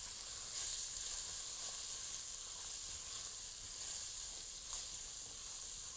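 Chopped carrots sizzling steadily in hot oil in a cooking pot while a wooden spoon stirs them.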